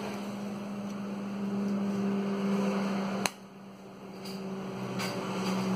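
A steady mechanical hum with a low drone, broken by a single sharp click about three seconds in.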